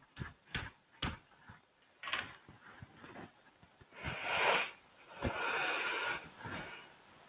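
A run of light taps or knocks, about five in the first two seconds, then two rasping scrapes of about a second each: handling noise, with no speech.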